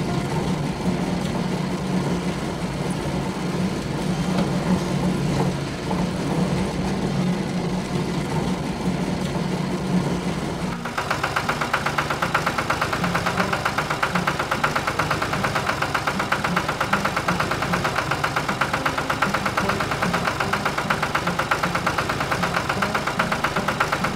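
Cartoon machine sound effects: a steady mechanical hum for the first ten seconds or so, then a truck engine running with a fast, even pulsing that starts abruptly about eleven seconds in.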